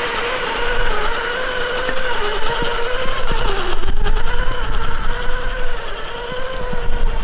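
Traxxas TRX-4 Sport RC crawler's sensored brushless motor and geared drivetrain whining as it climbs wet rock. The pitch wavers up and down with the throttle and dips about three and a half seconds in, over a low rumble with scattered ticks.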